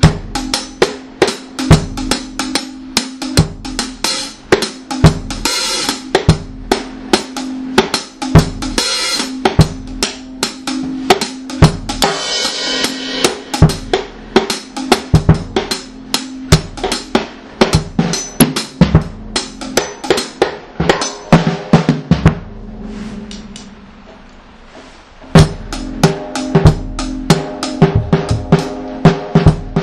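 One-drop reggae dub drum track: a drum kit plays kick, snare and a few cymbal crashes over a steady held low note. Late on, the drums drop out for about three seconds, leaving the low note, then come back in.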